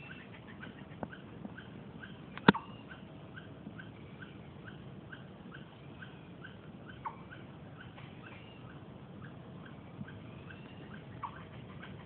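Short, evenly spaced chirps, about two a second, from a small calling animal, with a few louder downward-sliding calls now and then and a sharp click about two and a half seconds in.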